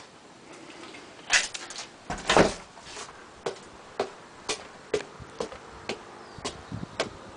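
Footsteps climbing concrete outdoor steps, about two steps a second, after a couple of louder thumps.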